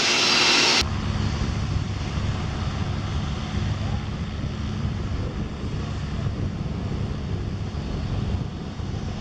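Wind buffeting the microphone in a steady low rumble, with a distant light propeller aircraft's engine faint underneath. A brief steady hiss cuts off just under a second in.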